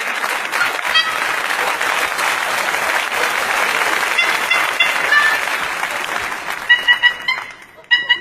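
Audience applauding for about seven seconds, then short horn notes of a tune start up again near the end.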